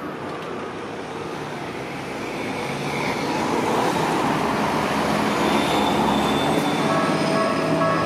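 Road traffic passing close at a level crossing: a city bus and a car driving by, their engine and tyre noise swelling from about two seconds in and staying loud. Near the end a repeating electronic tone starts up.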